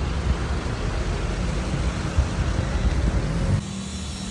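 Steady low rumbling street noise, like passing traffic, which changes abruptly to a quieter steady low hum about three and a half seconds in.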